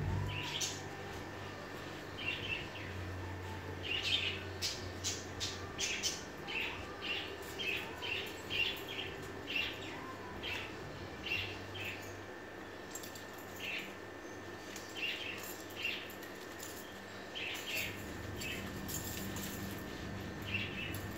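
Small birds chirping, with short, high chirps coming irregularly about once or twice a second, over a steady low hum.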